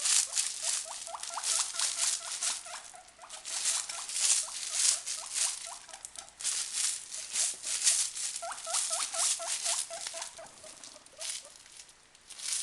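A plastic bag rustling, and guinea pigs squeaking excitedly in quick runs of short rising calls, several a second, in two bouts, the first about a second in and the second near two-thirds through.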